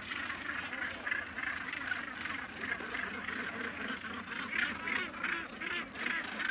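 A northern gannet colony calling: many birds' calls overlapping in a continuous, steady chorus.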